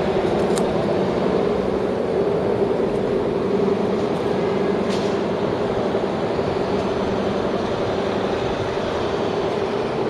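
Steady mechanical drone with a constant hum, like engines or plant running around a large construction site; a lower hum in it fades out about eight and a half seconds in, and there are a couple of faint clicks.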